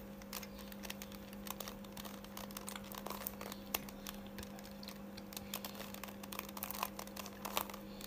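Plastic 3x3 Rubik's cube being turned by hand: quick, irregular clicks and clacks of its layers rotating, over a faint steady hum.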